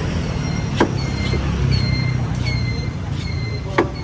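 A large knife chopping into the husk of a green coconut: two sharp strikes about three seconds apart, over a steady rumble of street traffic.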